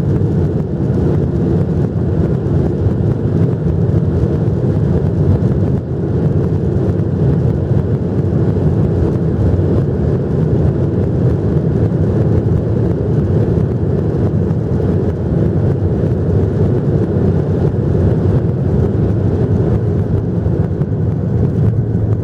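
Steady, even rumble of a Boeing 737-800 heard inside the passenger cabin, its CFM56-7B engines and airframe running as the airliner rolls on the ground just after landing.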